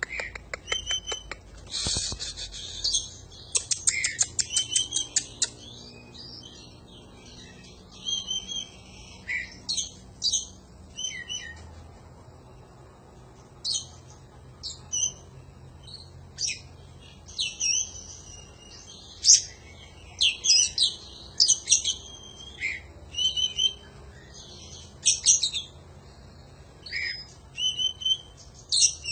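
Oriental magpie-robin (kacer) singing. It opens with a fast run of clipped notes in the first few seconds, then gives short whistled phrases every second or two.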